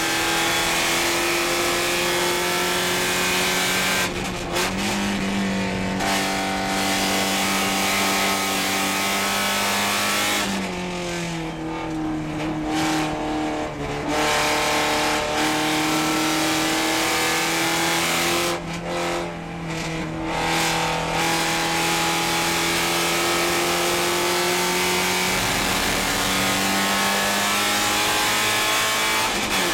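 Porsche 944 Spec race car's four-cylinder engine at racing revs, heard from inside the cockpit. The engine note holds steady between several drops in pitch and loudness that then climb back: about four seconds in, around ten seconds, again around nineteen to twenty-one seconds, and once more at the very end.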